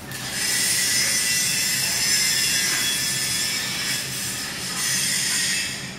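Loud, steady high-pitched hiss of metalworking that throws sparks, starting abruptly and cutting off near the end, over a faint low machine hum.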